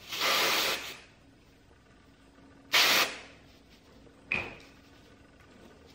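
Aerosol hairspray can sprayed into hair in two hisses: one lasting under a second at the start, a shorter one about three seconds in. A brief, fainter sound follows a little after.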